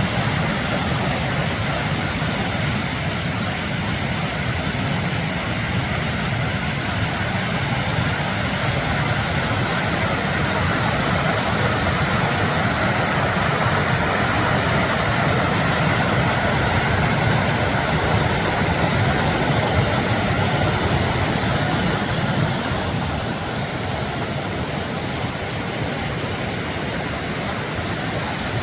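Snowmelt-swollen mountain creek rushing steadily over its bed, a loud, even wash of water that eases slightly near the end.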